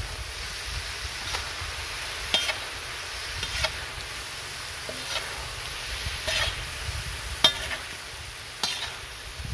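Metal spatula scraping and clinking on a large flat metal tawa while stirring and turning diced chicken with tomatoes and green chillies, over a steady sizzle of the food frying. The clinks come about seven times, roughly a second or so apart.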